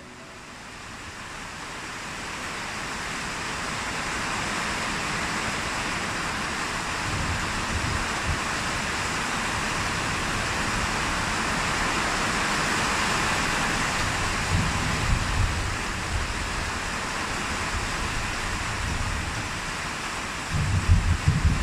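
Thunderstorm: steady heavy rain fading in over the first few seconds, with low rumbles of thunder about seven and fifteen seconds in and a louder, crackling rumble near the end.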